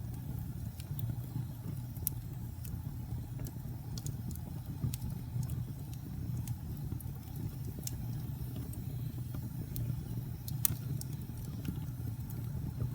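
Wood fire crackling: scattered sharp pops and snaps over a steady low rumble of the flames, with two louder pops, one about two seconds in and one near the end.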